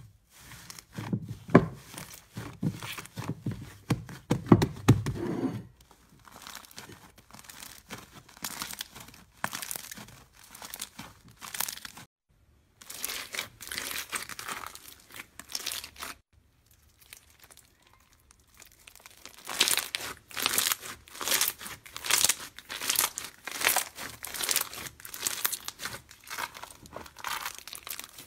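Thick slime squished under both hands, then bead-filled slime crackling with dense runs of tiny clicks as fingers press and knead it, in several bouts with short pauses.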